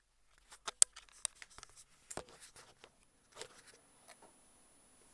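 Close handling noise: a quick run of sharp clicks and rustles, the loudest a little under a second in, thinning out to a few faint taps.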